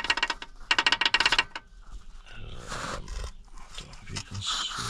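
Rapid metallic clacking, about ten knocks a second for under a second, as the rearmost connecting rod of a Mitsubishi L200 engine is rocked by hand on its crankshaft journal. The clacking means the big-end bearing has loads of play, which is the cause of the engine's knock. Softer rustling follows.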